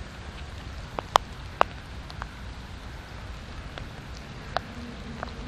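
Steady rain with separate drops ticking sharply close by, two loud ones about a second and a half in.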